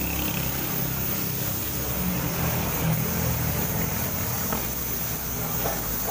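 Air compressor for a paint spray gun running steadily: a constant low motor hum with an even hiss above it.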